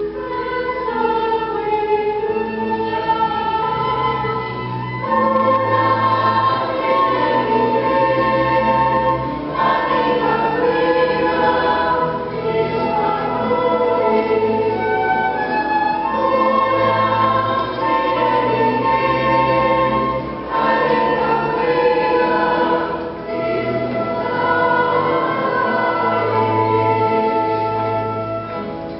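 A choir singing a Nahuat-Pipil song in sustained chords, with low instrumental bass notes underneath.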